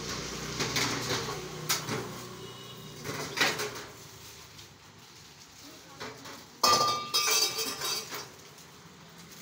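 Metal clattering as steel utensils are handled inside a galvanized steel trunk: a few light clinks, then a sharp clank about two-thirds of the way through that rings briefly, followed by more rattling.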